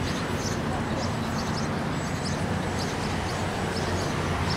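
Steady outdoor background noise at a soccer match: an even rumble and hiss with faint, distant voices from the field.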